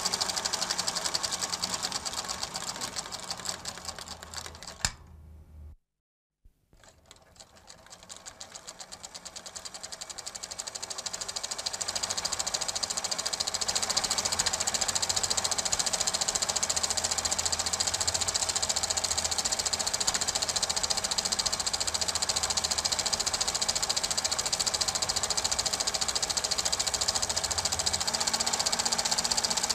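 Super 8 film projector running, its mechanism giving a fast, even rattle. It fades out about four seconds in, is silent for a moment around six seconds, then fades back up over several seconds and runs steadily.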